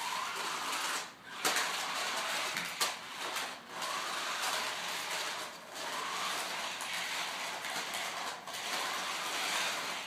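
Toy remote-control cars' small electric motors whirring as they drive over a tile floor, in spurts of a second or more that cut out briefly between runs, with a faint whine that rises and falls.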